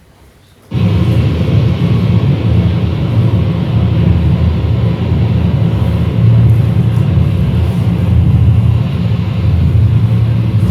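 Loud, dense, rumbling noise music that starts abruptly about a second in and holds steady, heaviest in the low end with no clear melody or beat.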